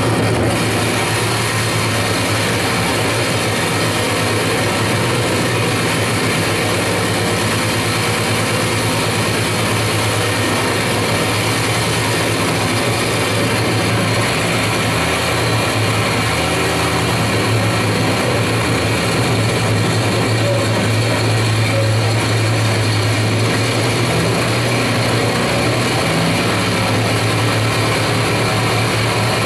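Propeller aircraft's piston engine running steadily: a constant low hum under a broad rushing noise.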